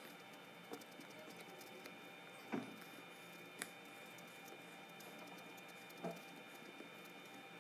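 Green felt-tip marker scratching and dabbing on paper, faint and soft, with a few sharper taps of the pen, the loudest about two and a half seconds in.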